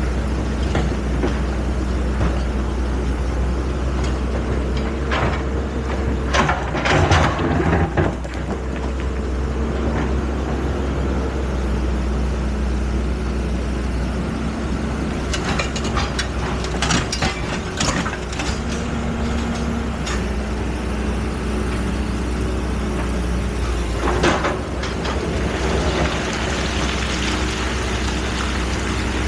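Excavator's diesel engine running steadily with a low drone, broken by clusters of metallic clanks and knocks about six, sixteen and twenty-four seconds in.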